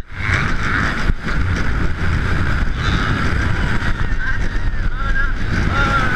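Wind rushing over the camera microphone and the rumble of a steel roller coaster train running fast along its track, with a wavering high tone near the end.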